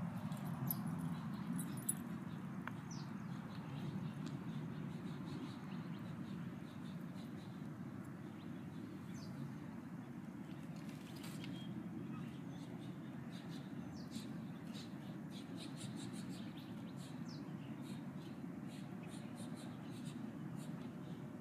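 Faint, quick high chirps of small birds over a steady low rumble, with the chirps coming more often toward the end.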